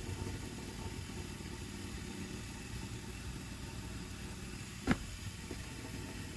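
Steady low rumble of an idling vehicle engine, with one sharp knock about five seconds in.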